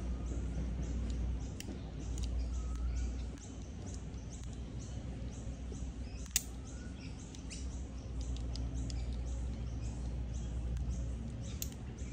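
Birds chirping over a steady low rumble of outdoor background noise, with a single sharp click about six seconds in.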